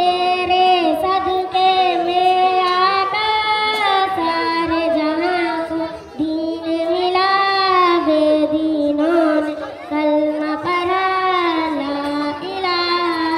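A young girl singing solo into a microphone, one high voice in long held, gliding notes, with a brief pause for breath about six seconds in.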